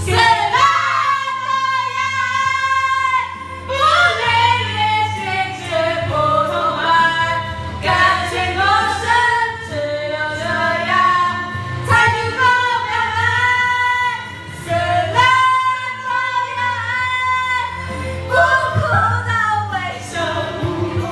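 A woman singing a song over a backing track, her voice sliding and wavering between held notes, sung with a cold and a very sore throat; it stops abruptly at the end.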